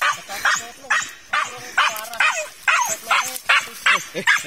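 Hunting dog barking in quick repeated barks, about two to three a second.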